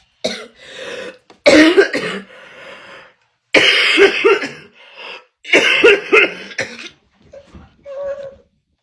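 A woman coughing hard in repeated fits, about five bouts with short breaks between them, the fit set off by inhaling a dab of cannabis concentrate.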